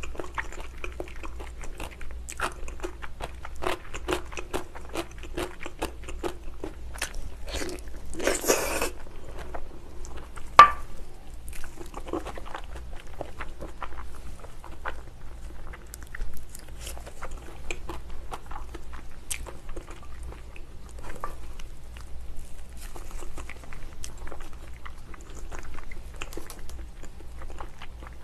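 Close-miked biting and chewing of spicy braised ox feet: wet mouth smacks and frequent small clicks, with a short hissing noise just past eight seconds and one sharp, louder click about ten and a half seconds in.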